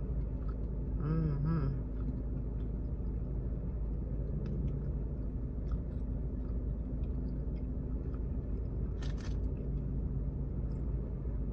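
A person chewing and eating a sandwich inside a car, with small mouth clicks over a steady low engine hum. There is a brief hummed "mm" about a second in and a short rustling burst near the end.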